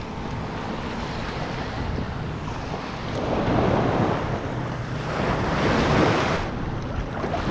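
Small waves washing on the shore with wind buffeting the microphone; the surf swells louder twice in the second half.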